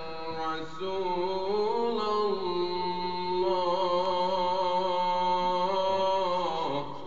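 A man's voice reciting the Quran in a melodic chanted style: one long phrase of held notes with ornamented turns in pitch, which falls and breaks off just before the end.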